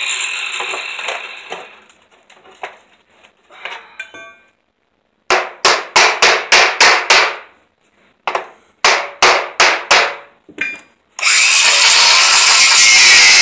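Metal hammer strikes on a chisel against an aluminum sliding-door track, in two quick runs of about four blows a second. A power tool then starts cutting with a loud, steady noise near the end.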